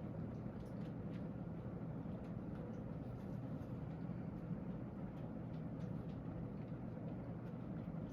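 1988 Hunter Original ceiling fan running steadily on high speed: an even motor hum with a faint steady whine, under the rush of air from the blades.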